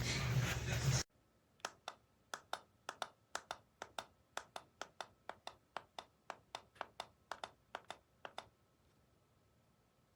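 A loud stretch of voice and music cuts off abruptly about a second in. It is followed by about two dozen sharp plastic clicks, roughly three a second, from the triple-barrel curling iron's setting controls being clicked through.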